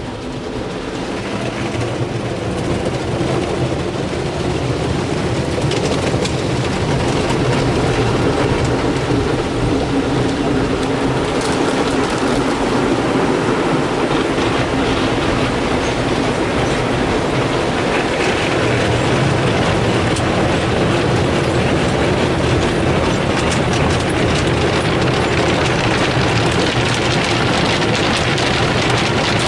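Ryko SoftGloss XS in-bay car wash working over the car, heard from inside the cabin: water spraying on the glass and cloth brushes slapping and rubbing along the body, over a steady machine hum. It builds up over the first few seconds and then holds steady.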